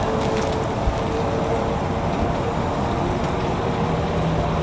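A sedan's engine running as the car creeps slowly forward: a steady hum over a broad outdoor noise, with a lower tone joining near the end.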